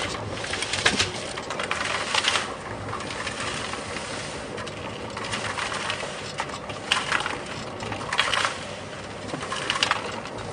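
Concrete mixer running, with wet concrete churning and pouring into a bucket: irregular gritty scraping surges over a steady low hum.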